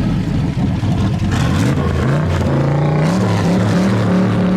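Car engine revving hard: its pitch rises and falls, then climbs about halfway through and holds high near the end.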